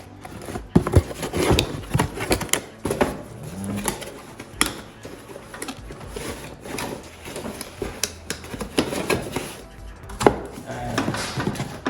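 Bagged 3D-printer kit parts being handled: plastic bags rustling, with irregular clicks and knocks as small plastic parts are picked up and set down.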